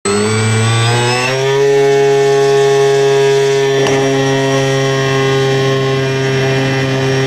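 Radio-controlled model airplane's motor and propeller running at high speed with a steady buzzing drone; the pitch rises over the first second or so, then holds.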